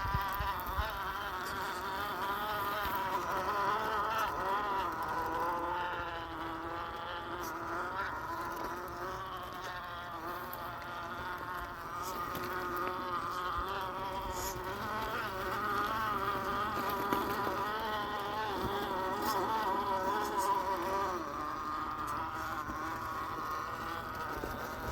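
Axial SCX10 II RC crawler's electric motor and gear drivetrain whining as it crawls, a buzzing tone whose pitch wavers up and down with the throttle.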